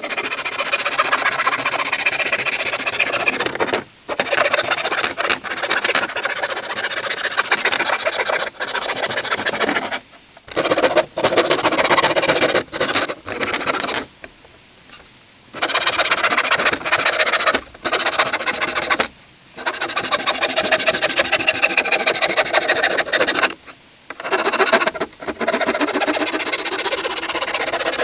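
Hand sawing of wood: rapid rasping strokes in bouts of a few seconds, each stopping abruptly, with short pauses between.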